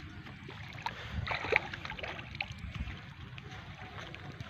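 Wind buffeting the microphone over water sloshing in shallow muddy water, with a brief louder splash about a second and a half in.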